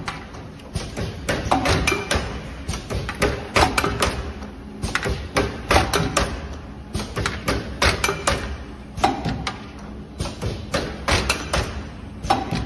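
Dropper bottle filling and capping machine running: a dense, irregular clatter of knocks and clicks from its mechanisms, with glass dropper bottles knocking together on the outfeed conveyor.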